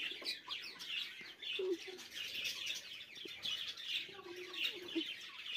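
A flock of budgerigars chirping and chattering: many quick, high chirps, fairly faint, with a couple of lower, drawn-out calls about one and a half and four seconds in.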